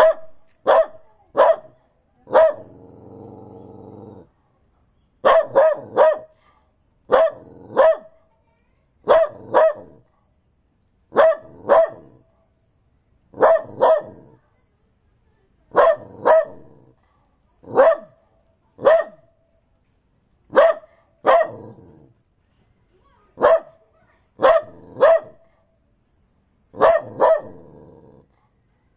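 A Daito dog, a Japanese native dog breed, barking repeatedly in quick pairs and threes about every two seconds. One longer, lower drawn-out growl comes about two seconds in.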